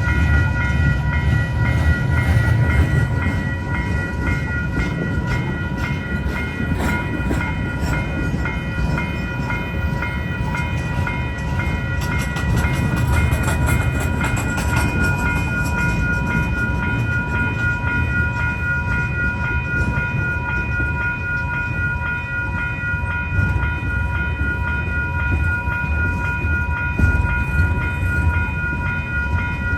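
CPKC welded-rail train rolling past with a steady low rumble of wheels on rail. A run of clicks and clanks comes about 12 to 15 seconds in. Several steady high-pitched tones hold over the rumble throughout.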